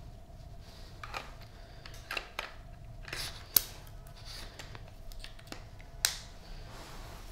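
Handling noises of unboxing: scattered rustles and clicks of packaging and parts being handled, with two sharp clicks, one about halfway through and one near the end, over a faint steady hum.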